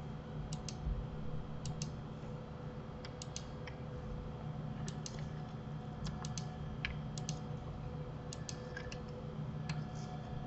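Scattered clicks of a computer mouse and keyboard, many in quick pairs, over a steady low hum.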